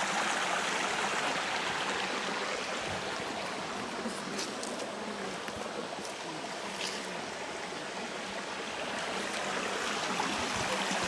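Running water of a stream, a steady rushing hiss with a few faint ticks.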